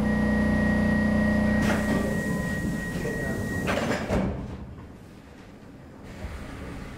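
Stockholm Metro C6 train standing at a platform. A steady hum from the train's equipment stops about two seconds in, under a steady high tone, and the sliding doors bang shut with a couple of thuds about four seconds in.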